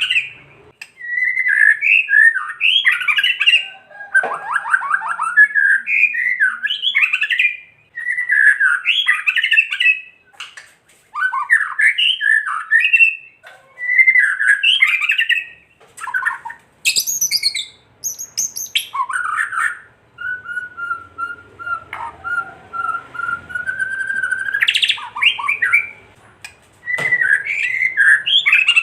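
White-rumped shama (murai batu) singing an agitated, rattling 'kretekan' song: a string of short, rapid, chattering phrases with brief gaps, broken about two-thirds through by one long steady whistle that rises sharply at its end.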